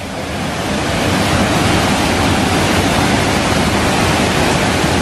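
The fast current of the Petanu river rushing: a loud, steady roar of flowing water that swells slightly in the first second and then holds even.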